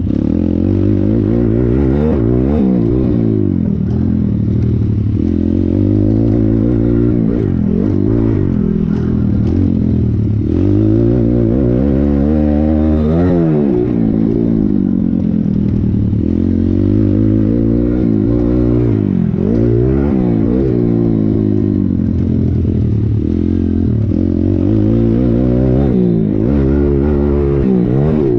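Thumpstar 140cc pit bike's single-cylinder four-stroke engine ridden hard, revving up and dropping back again and again through the laps.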